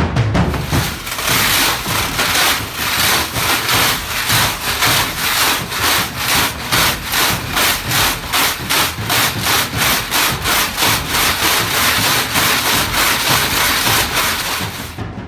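A hand-worked Foley sound-effects device making loud, rhythmic rasping strokes, about three a second, like wood being sawn or rubbed.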